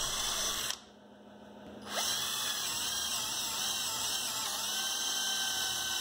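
Hercules cordless drill boring quarter-inch holes in wood. The motor whines, stops about a second in, then starts again and runs steadily, handling the bit without a problem.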